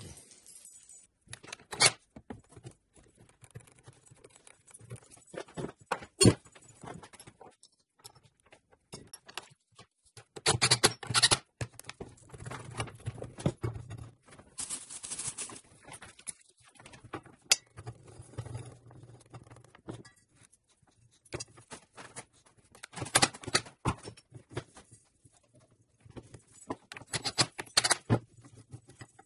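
Irregular clinks, knocks and rattles of metal parts and hand tools being handled, with a few short stretches of clatter, while pillow-block bearings and a pulley are fitted to a motor-driven shaft.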